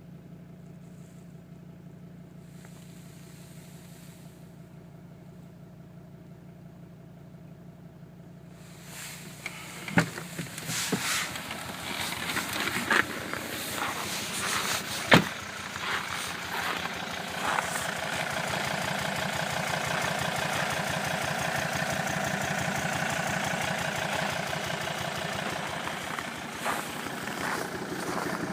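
Volvo D5 five-cylinder turbodiesel idling with a deep pumping sound, the sign of a broken hydraulic valve lifter. The engine gets louder about nine seconds in, with a few sharp knocks between about ten and fifteen seconds.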